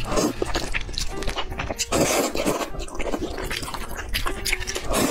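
Close-miked eating: a mouthful of spicy noodles slurped and chewed, with wet clicking mouth sounds. There is a denser slurping noise about two seconds in.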